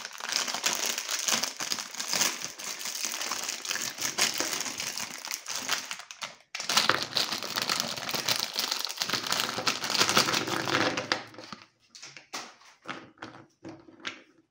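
Foil-lined plastic biscuit wrapper crinkling as it is handled and shaken, with a short break about six and a half seconds in. After about eleven seconds the crinkling stops and a few light clicks follow as the biscuits in a plastic bowl are picked through.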